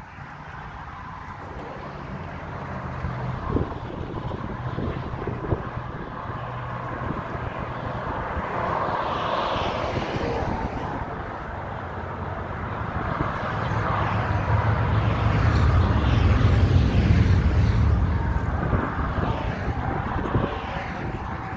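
Road traffic going by, with a low engine rumble that grows slowly to its loudest about two-thirds of the way through and then fades, as a heavy vehicle passes.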